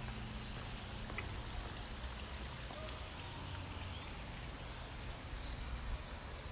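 Outdoor park ambience: a steady, even hiss with a low rumble underneath, a few faint clicks and some short, faint high chirps.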